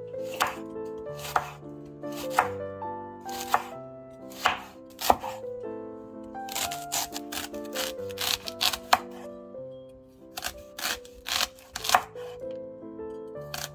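Chef's knife slicing a half head of white cabbage into thin shreds on a wooden cutting board: crisp cuts with a knock of the blade on the board, about one a second at first, then coming quicker in the second half.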